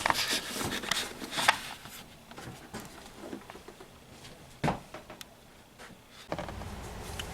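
Handling noise from a car's instrument cluster being turned over and checked: small clicks, taps and rustles of plastic parts, with one sharper knock about four and a half seconds in. A steady low hum starts near the end.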